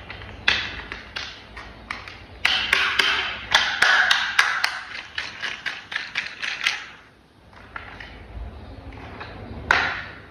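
Hard plastic toy parts clicking and tapping as they are handled and fitted together. A quick run of clicks comes first, then a short pause and one louder click near the end.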